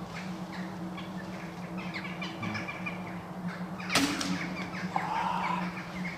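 A single air rifle shot about four seconds in, one sharp crack over a steady low hum, with faint squeaks and chirps around it.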